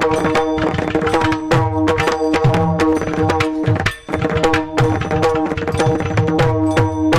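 Instrumental kirtan accompaniment: an Indian hand drum plays a fast, continuous rhythm whose bass strokes bend in pitch, over steady held tones, with a brief break about four seconds in.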